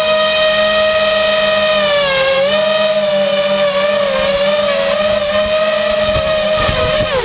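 A homebuilt drone's electric motors and propellers whining steadily, picked up by the GoPro mounted on the drone itself. The pitch dips briefly a couple of times as the throttle changes, then falls sharply near the end as the motors spin down on landing.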